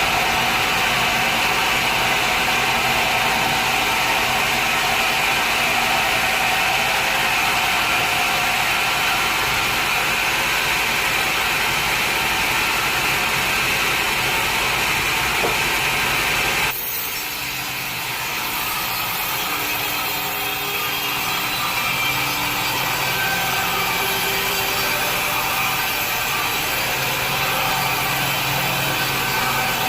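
A sawmill blade cutting through a log, a steady loud machine-and-cutting noise. About seventeen seconds in, it breaks off suddenly into a quieter, steady machine running.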